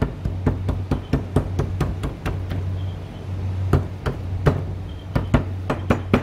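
Kitchen knife tapping and chopping lightly on slices of raw pork shoulder against a cutting board: quick, irregular knocks, about three or four a second. The blade is breaking up the sinew in the meat, under a steady low hum.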